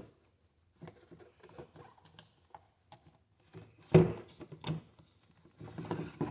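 Plastic clicks and rustling from handling, with a louder clatter about four seconds in: the engine air filter housing being opened and the filter taken out to be checked.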